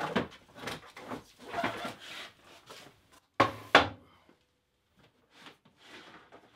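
Small wooden blocks being handled and set down on a wooden tabletop: a string of knocks and scrapes, the loudest two sharp knocks about three and a half seconds in, then only faint handling.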